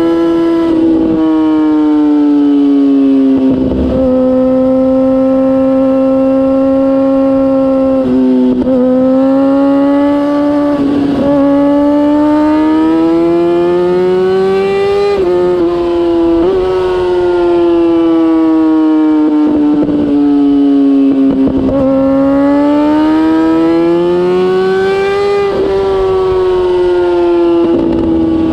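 Kawasaki ZX-6R inline-four engine running at high revs through a MIVV GP aftermarket exhaust while riding. The loud, steady exhaust note climbs and falls slowly in pitch, with a few brief dips and sudden small drops where the revs change.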